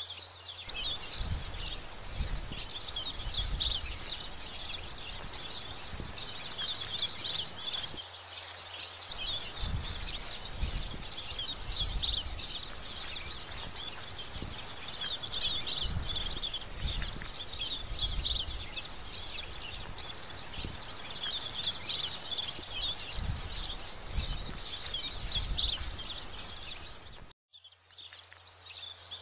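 Dense, continuous chirping of many birds, with soft low thumps scattered through it; the sound drops out briefly near the end.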